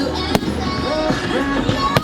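Show soundtrack music with two sharp firework bangs, one about a third of a second in and one near the end.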